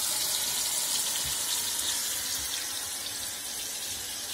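Meat cutlets sizzling in hot oil in a frying pan: a steady frying hiss that eases slightly about halfway.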